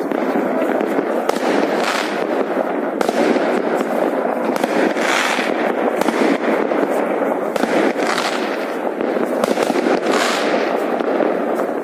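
Many aerial fireworks and firecrackers going off at once: a dense, unbroken crackle of pops and bangs, with louder bursts every second or two.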